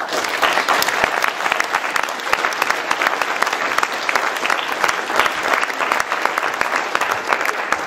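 An audience applauding: dense, steady clapping from many hands that starts suddenly.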